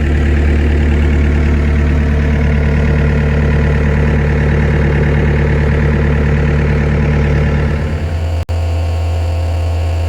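Diesel engine of a Volvo ECR88 compact excavator running under load, a steady loud hum while the hydraulic track drive pulls a broken track off its idler. The sound breaks off for an instant about eight and a half seconds in, then a plainer, steadier hum goes on.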